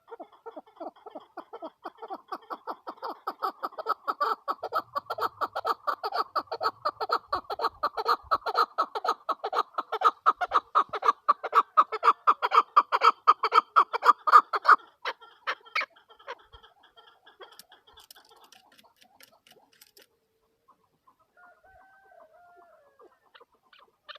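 Chukar partridge, a female by the title, calling a long, rapid run of repeated clucking notes that builds in loudness for about fifteen seconds and then stops, leaving only a few faint notes.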